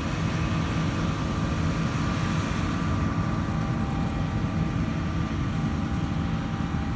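Combine harvester running steadily while cutting wheat, heard from inside the cab: a constant low rumble with a faint steady whine above it.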